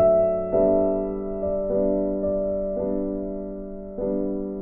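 Slow, gentle piano music: chords struck roughly once a second and left to ring and fade.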